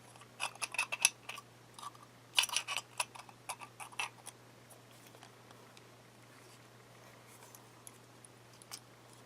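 Small sharp clicks and taps of a Noke Bluetooth smart lock being handled, coming in quick clusters for the first four seconds or so, then only a few scattered single clicks.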